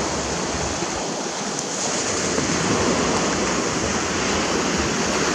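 Steady rushing of surf, with wind buffeting the microphone.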